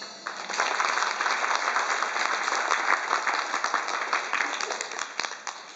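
Audience applauding: a burst of clapping that starts just after the keyboard piece ends and slowly dies away near the end.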